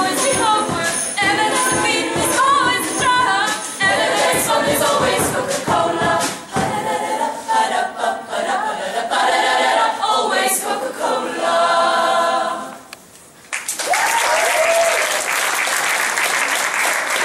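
Group of women singing together, punctuated by sharp rhythmic hits. The song ends about 13 seconds in, and after a short pause the audience applauds.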